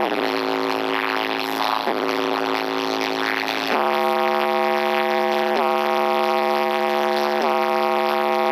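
Music built on a long, buzzy electronic note held at one pitch. The note drops lower for the first few seconds, then returns to its higher pitch with a couple of brief dips.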